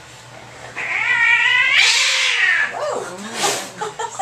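Angry domestic cat being restrained for a vet exam, yowling: a long, wavering yowl begins about a second in and breaks into a harsh hiss, with another short hiss near the end.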